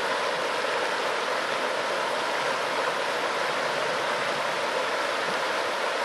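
Small river flowing over a shallow rocky riffle: a steady, even rush of water.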